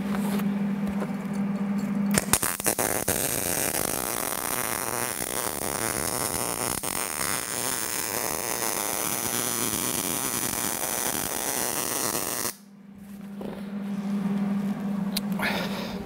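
MIG welder arc running for about ten seconds, a steady dense crackle with spatter as a weld is laid on a steel leg, cutting off abruptly near the end. Before the arc strikes there are a few clicks over a steady low hum, and the hum returns after the arc stops.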